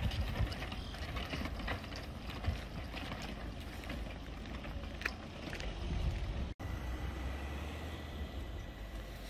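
Low, steady rumble of an ÖBB electric multiple unit standing at the platform, with faint scattered clicks. The sound breaks off abruptly about six and a half seconds in and resumes with a thin steady high tone added.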